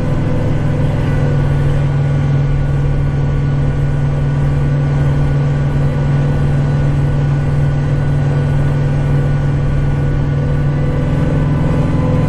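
Kubota tractor engine running steadily under load while it drives the snowblower, heard from inside the cab as an even, unchanging drone.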